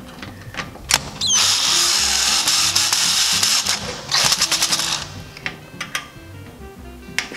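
Cordless screwdriver running in two bursts, about two and a half seconds and then under a second, driving the small screws that hold a baseboard heater's thermostat dial plate, with a few clicks between. Faint background music.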